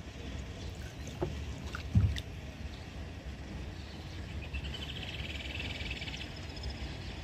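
Cast net being hauled back to a small boat by its rope, with water moving around the hull. A single low thump about two seconds in is the loudest sound. A fast, high rattle comes near the middle.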